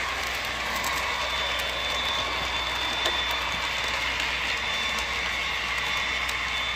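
Model freight train running past on sectional track: a steady mix of wheel noise on the rails and a high motor whine.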